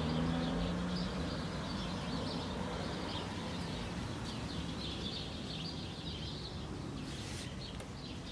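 Small birds chirping and twittering over and over in the background, over a steady low outdoor noise. A couple of brief rustles come about seven seconds in.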